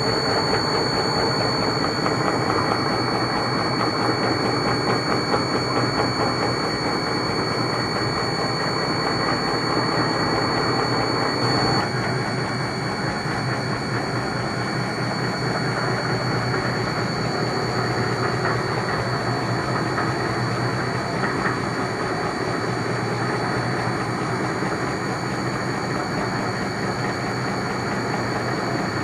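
Honey extractor running: a loud, steady mechanical whir with a thin high whine on top, a little quieter from about twelve seconds in.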